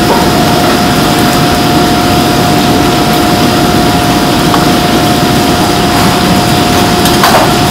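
Commercial gas wok burner rushing steadily under a wok of hot oil, with battered fish pieces sizzling as they deep-fry, over a steady high tone. A metal utensil clinks once near the end.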